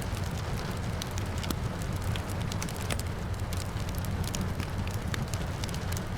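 Wood fire crackling, with many irregular sharp pops and snaps over a steady low rumble and a hiss of rain behind.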